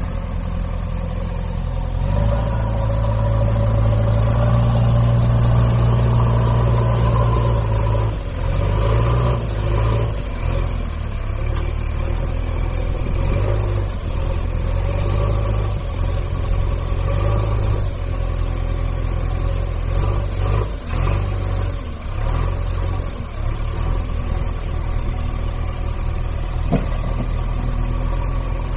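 A vehicle engine running, its level swelling and dipping unevenly.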